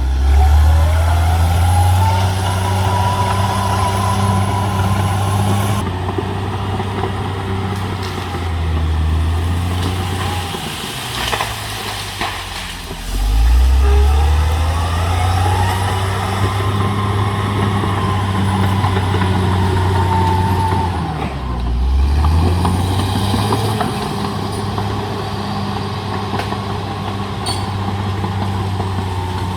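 CAT D6R XL bulldozer's diesel engine working under load, revving up sharply three times: at the start, about 13 seconds in and about 22 seconds in. Each rev-up brings a rising whine that holds high and then falls away.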